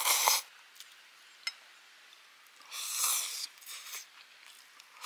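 A person eating and sipping from a stainless steel camp cup. There are two short breathy slurps, one at the start and one about three seconds in, with a faint click between.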